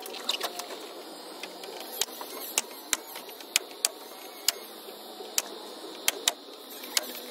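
Pneumatic nail gun firing nails through a thin melamine wall panel into the frame: about ten sharp shots at uneven intervals.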